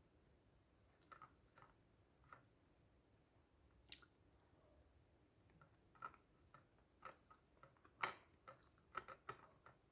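Chewing and mouth sounds of someone eating a meal of fried chicken and rice: scattered soft clicks and smacks, few at first, then coming thick and fast in the second half, loudest about eight seconds in.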